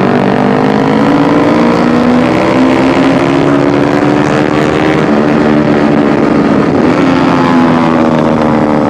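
Bajaj Pulsar NS160's single-cylinder engine running through a very loud aftermarket exhaust, its pitch climbing over the first few seconds and then slowly easing off.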